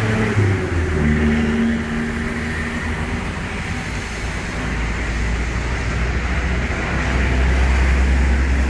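A motor vehicle's engine running, a low steady hum that grows louder near the end.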